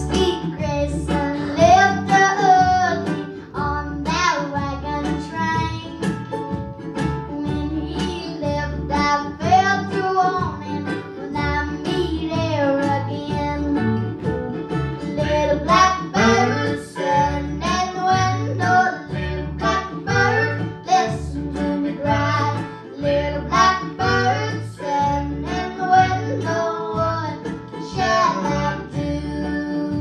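Live acoustic string band playing: upright bass plucking a steady beat, mandolin and a small guitar or ukulele strumming, and a hand drum, with a high female voice singing over it.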